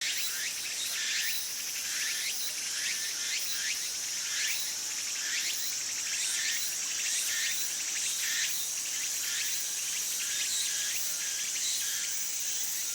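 Tsukutsukuboshi cicada (Meimuna opalifera) singing: short phrases repeated about twice a second over a steady high buzz.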